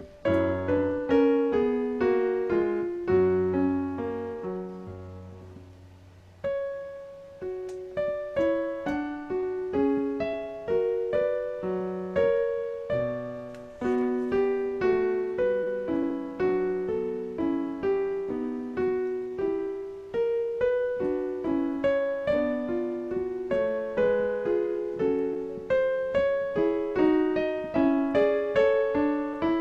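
Solo piano music: a steady stream of single notes and chords that ring and die away. About six seconds in, the playing fades almost to nothing, then picks up again and carries on evenly.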